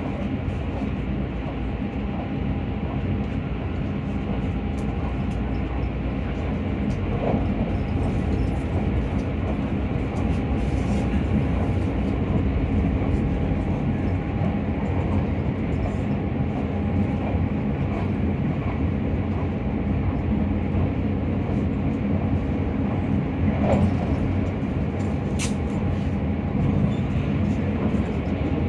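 Keisei Skyliner express train running steadily along the line: a continuous rumble of wheels on rails with a faint steady whine and a few light clicks.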